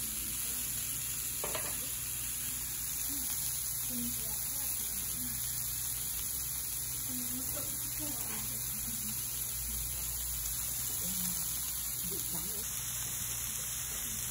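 Bacon-wrapped shrimp and pork sizzling steadily on a hot ridged griddle pan, over a steady low hum.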